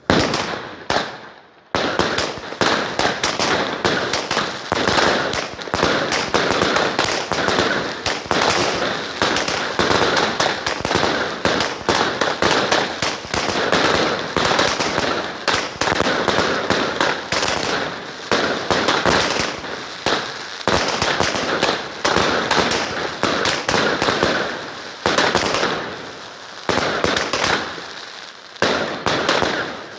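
Fireworks going off in a rapid, dense string of bangs and crackles. One bang opens it, then after a short gap the crackling runs on continuously, with a few brief breaks near the end.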